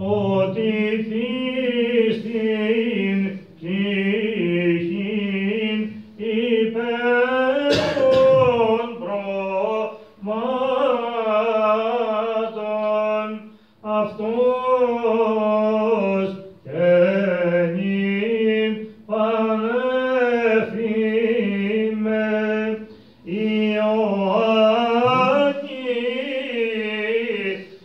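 Greek Orthodox Byzantine chant: a male chanter sings a slow, drawn-out melismatic hymn over a held low drone note (the ison), in phrases broken by short pauses. A brief knock sounds about eight seconds in.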